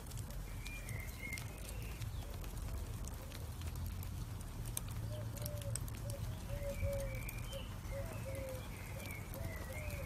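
Burning charcoal crackling, with scattered sharp pops over a low steady rumble. Birds call in the background, briefly about a second in and in a run of short calls from about halfway through.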